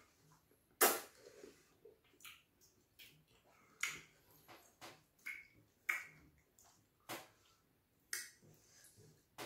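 Eating sounds from fufu and slimy ogbono (draw) soup eaten by hand: short, wet smacks and squelches, about eight of them scattered a second or so apart, the loudest about a second in.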